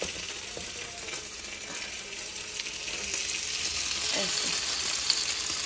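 Chicken tikka pieces sizzling in hot pans, a steady hiss that grows a little louder about three seconds in.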